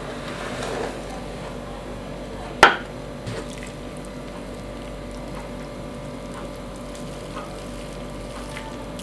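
Curry instant noodles and broth poured from a pot onto a plate, with soft liquid sloshing and small ticks. A single sharp knock of a dish about two and a half seconds in, over a steady faint hum.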